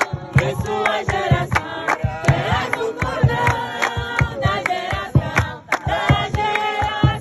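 A group of voices singing together, with a steady beat of sharp percussive strokes about three times a second.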